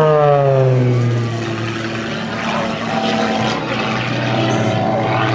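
Extra 330 aerobatic plane's piston engine and propeller heard from the ground, its pitch falling over the first second and a half, then settling into a steady drone.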